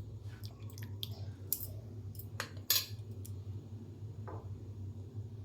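Spoon stirring a drink in a cup, clinking against the cup several times at irregular moments, over a steady low hum.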